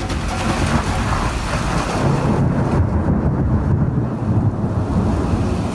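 Thunder rumbling low and continuously, with rain noise.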